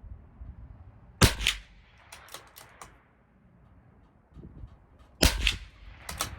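Two shots from a CZ 457 LRP .22 LR bolt-action rifle firing SK High Velocity Match ammunition, about four seconds apart. Lighter metallic clicks of the bolt being worked fall between and after the shots. A low rumble of wind runs underneath.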